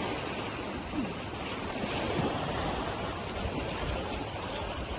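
Small waves washing onto a sandy beach: a steady surf noise.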